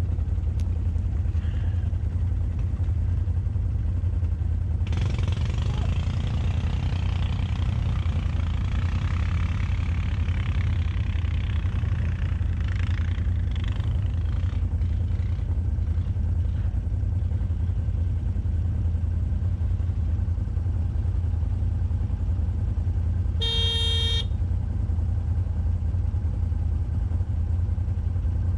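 ATV engines idling steadily, with a louder stretch of higher, hissing noise for several seconds in the middle. About four-fifths of the way through comes one short horn toot.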